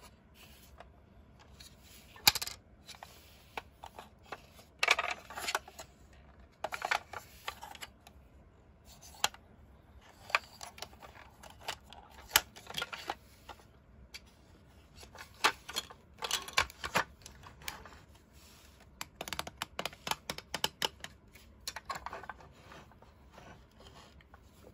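Small hard plastic toy parts being handled: irregular clicks, taps and light scrapes as the hinged panels of a toy ambulance are opened, closed and pressed into place, coming in scattered clusters.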